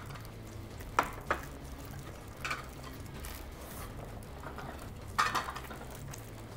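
Low steady room hum broken by a few light clicks and taps of dishes and hands working, two about a second in and a short cluster after five seconds.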